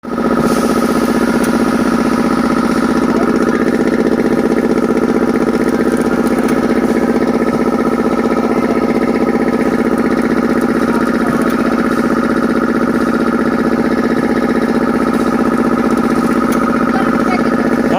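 Cooking-oil packaging machine running with a steady mechanical hum that holds one pitch throughout.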